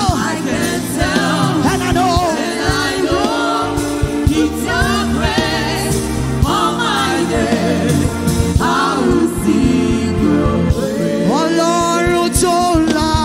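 Gospel praise music: a singer's voice sliding and bending in pitch over steady held chords, with drum hits.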